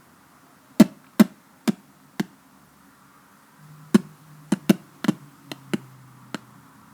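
A series of sharp taps: four evenly spaced in the first couple of seconds, then about seven more, less regular, in the second half, over a faint low hum.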